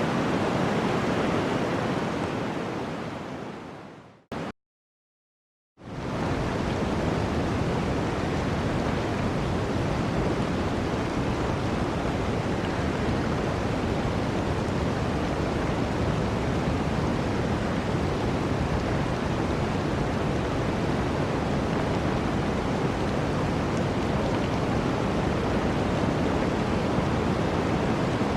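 Steady rushing water that fades out about four seconds in. After about a second and a half of silence, another steady rushing-water recording fades in and runs on evenly.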